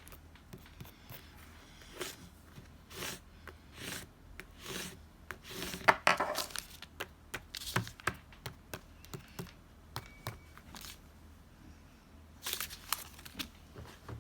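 Paper and stationery being handled on a desk: short taps and clicks, with rustling and tearing of paper, loudest about six seconds in and again near the end.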